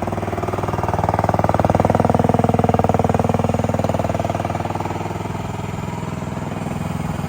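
A 13.5-horsepower MIVA VA15P mini excavator engine running steadily. From about a second in, a higher note swells, drops in pitch and fades out by about five seconds in.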